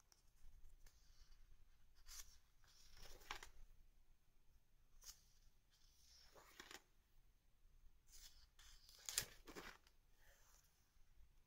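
Paper pages of a spiral-bound Rollbahn diary being turned by hand: a faint series of soft rustles and swishes, with one sharper slap of a page just past nine seconds in.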